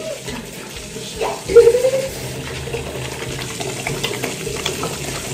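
Tap water running into a bathroom sink over hands scrubbing a bar of soap, with a short vocal sound about a second and a half in.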